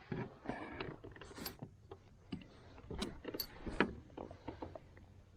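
Irregular clicks, knocks and small rattles of fishing gear and a just-landed catfish being handled in a kayak.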